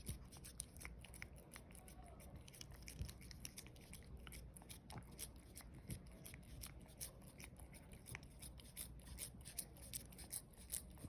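A cat eating a treat close to the microphone: a quick, irregular run of small, soft mouth clicks from its chewing and licking.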